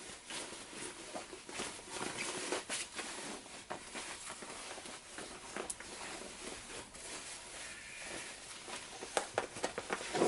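Fabric rustling and scuffing as a sewn jacket's shell and lining are pulled through a hole in the lining and turned right side out, with a run of louder handling knocks near the end.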